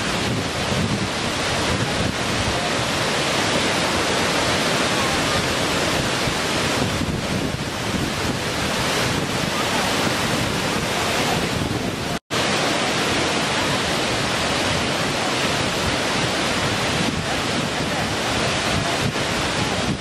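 Waterfall cascading over rock: a steady rush of water that cuts out for an instant about twelve seconds in.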